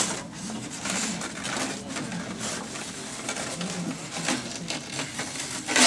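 Polystyrene foam packing shell being pulled apart and lifted off, foam scraping and rubbing against foam in short, uneven bursts, with a loud scrape near the end.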